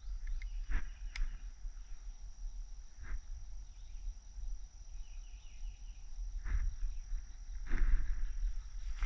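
Steady high-pitched insect drone in woodland, over a low rumble of wind on the microphone, with a few brief rustles scattered through it.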